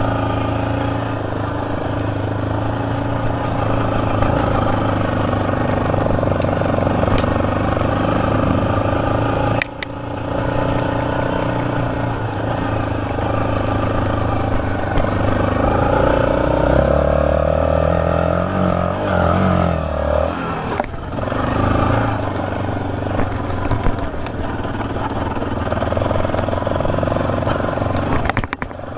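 Yamaha sport quad's engine running while being ridden, its pitch rising and falling with the throttle. There is a brief dip about ten seconds in, and a stretch of rising and falling pitch around seventeen to twenty seconds in.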